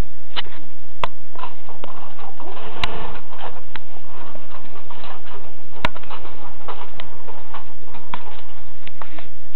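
Scattered sharp clicks, about half a dozen, over a rustling background.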